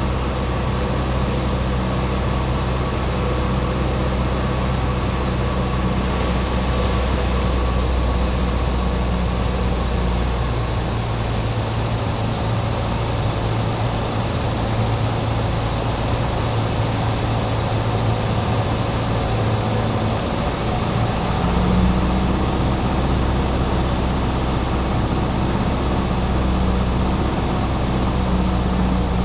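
Piper Cherokee 180's four-cylinder Lycoming engine and propeller droning steadily, heard inside the cabin in flight. Its low hum shifts about ten seconds in and settles back about ten seconds later.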